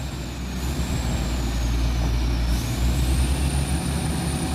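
Heavy truck's diesel engine pulling under load through deep mud, a steady low drone. A faint thin high whine dips and then climbs about two and a half seconds in.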